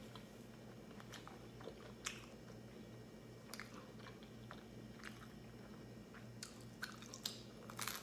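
Soft chewing and mouth clicks from eating pizza, with a crunchy bite into a slice of vegetable-topped pizza near the end, the loudest sound.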